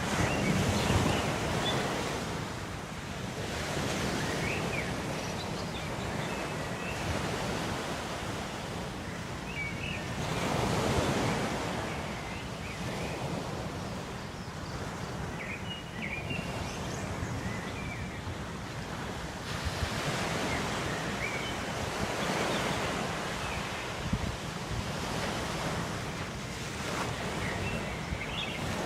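Ocean waves washing ashore in slow surges every few seconds, over a steady rush of wind, with faint short high chirps now and then.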